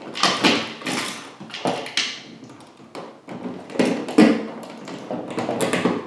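Irregular clicks, taps and rustles as hands push wall switches and stiff copper wires into a plastic electrical box, metal switch straps knocking against the box.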